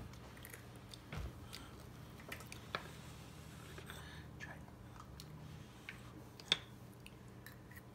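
A child chewing a mouthful of food quietly, with scattered small clicks, a soft low thump about a second in, and a faint steady low hum under it all.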